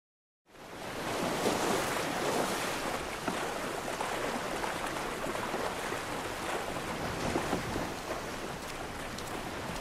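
Silence, then from about half a second in, a steady rush of surf and splashing water as people wade through the waves.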